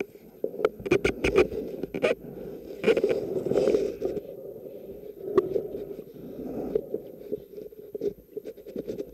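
Muffled underwater noise picked up by a camera in its waterproof housing: a steady dull rumble of moving water with scattered sharp clicks and knocks against the housing.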